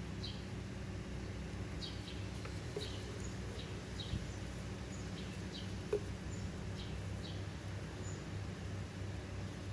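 Small birds chirping in short high notes, scattered every second or so over a steady low background hum, with a single light tap about six seconds in.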